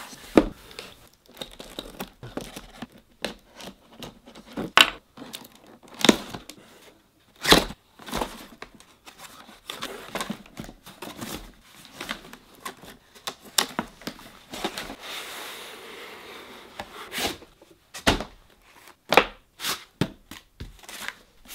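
A cardboard shipping box being opened by hand: tearing and rustling of cardboard and packaging, broken by several sharp knocks and bumps as the inner box is handled and lifted out of its foam end caps.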